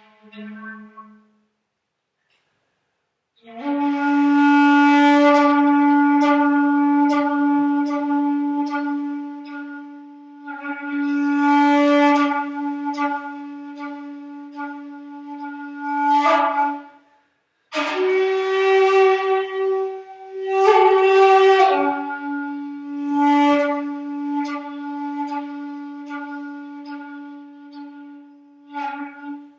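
Solo bamboo shakuhachi played slowly in the Kinpu-ryu style: long held low notes that swell and fade with strong breath noise. About a third of the way in the low note comes in after a short silence. Past halfway it breaks briefly for a higher note lasting about four seconds, then returns to the low note.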